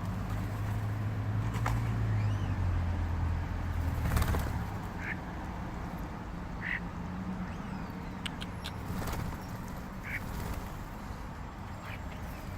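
Birds giving short squawking calls, three or four times, over a steady low hum that stops about four and a half seconds in, with a few sharp clicks.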